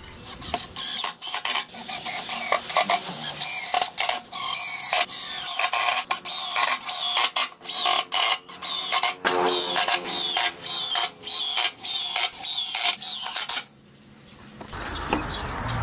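Cordless impact driver hammering screws into an MDF panel in a rapid series of short rattling bursts, one screw after another, which stop about 14 s in; a steady hiss starts near the end.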